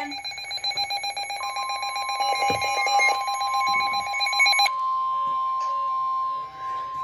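NOAA Weather Radio warning alarm tone: a single steady 1050 Hz tone, starting about a second and a half in and holding, which signals that a warning message follows. Over its first few seconds a rapid electronic pulsing plays with it and cuts off abruptly a little past halfway.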